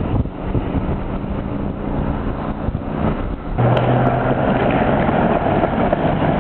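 City traffic and road noise while moving through the streets, then after a sudden change about three and a half seconds in, a louder steady rolling rumble of skateboard wheels over paving, with a few sharp clicks.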